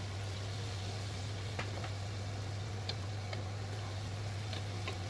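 A steady low kitchen hum with faint hiss, broken by a few light taps of a wooden spatula against the pan as the turkey curry is stirred.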